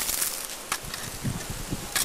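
Outdoor ambience on a handheld camcorder's microphone: a steady hiss of wind with a few soft low thumps of handling and a faint click under a second in.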